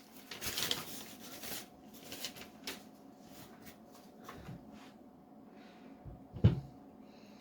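Small handling noises on a workbench: rustling and light clicks, with one sharper knock about six and a half seconds in.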